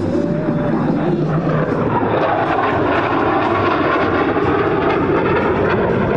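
An F-35A Lightning II's single F135 jet engine flying past as a loud, continuous rush of jet noise that grows fuller about two seconds in.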